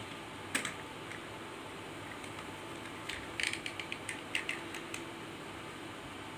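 Plastic suction-cup phone holder mount being pressed down onto a glass tabletop: a single sharp click about half a second in, then a quick run of small ratchet-like clicks around the middle.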